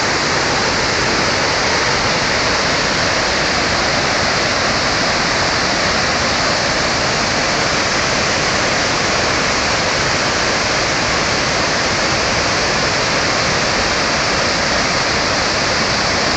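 Pykara waterfall: water falling and rushing in a loud, steady, unbroken wash of noise.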